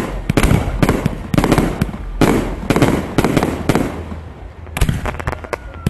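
"Volcano 360" firework going off, a fast crackling and popping in dense clustered salvos that thin out to scattered pops near the end.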